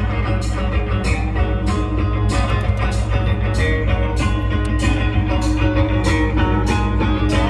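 Live band music played through a PA: electric guitar over a steady bass line and drum kit, with regular cymbal strokes, plus synthesizer.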